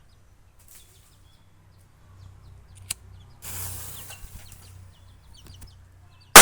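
Quiet background with birds chirping, then a sharp click about three seconds in, followed by about a second of hissing. Right at the end a homemade matchstick-head firecracker goes off with a single loud bang.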